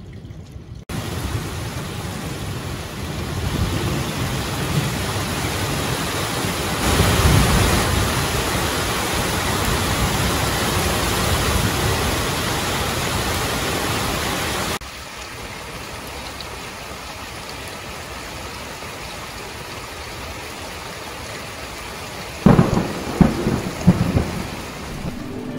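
Thunderstorm with heavy rain hissing steadily and thunder rumbling low, loudest a few seconds in. The rain cuts in abruptly about a second in and drops suddenly to a quieter level about halfway through. A few sharp low bangs come near the end.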